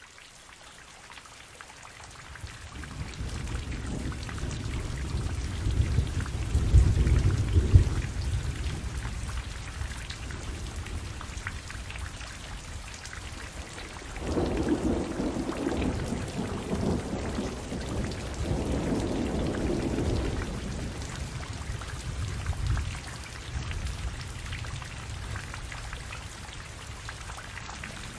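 Steady rain falling, with thunder rumbling: a long rumble builds over the first few seconds and is loudest about seven seconds in, then two more rumbles come around the middle. The rain fades in at the start.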